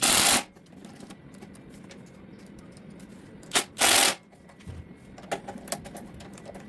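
Three short, loud hissing blasts, one just after the start and two close together about three and a half seconds in, with light clicking and handling noises between them.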